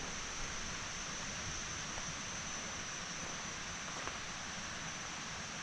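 Steady rushing of a large waterfall, with a thin steady high hiss above it.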